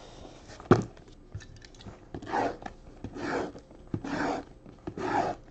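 A single knock as the cardboard boxes are pushed together, then a box cutter slicing along the sealed foil trading card boxes: four scraping strokes about a second apart, one per box.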